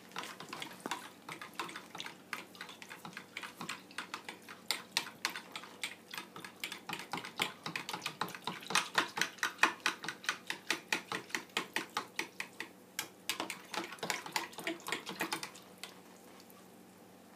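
Metal fork stirring dissolving gelatin cubes in hot water inside a plastic measuring jug, tapping and scraping against the jug's sides in quick clicks, several a second. The clicking stops shortly before the end.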